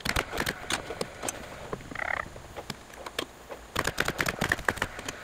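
Paslode cordless framing nailer driving nails down through a 2x4 double top plate into the wall below. A cluster of sharp shots and knocks comes near the start and another burst about four seconds in, with smaller clicks between.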